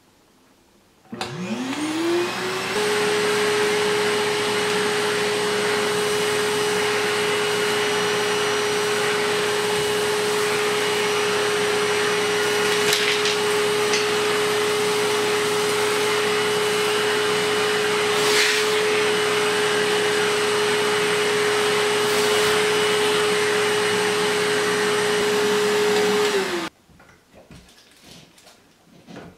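Iris Ohyama canister vacuum cleaner switched on about a second in, its motor spinning up in a rising whine to a steady pitch. It runs steadily, sucking sawdust through its hose via a homemade cyclone dust collector, with a few short ticks along the way. It is switched off near the end and winds down briefly.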